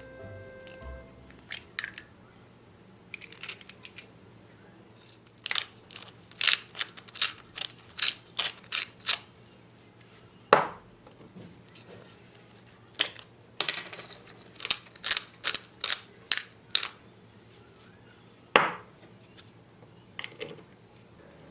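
Sharp clicks and knocks of kitchen utensils on dishes and work surfaces, coming in quick runs of about two a second, with two louder single knocks.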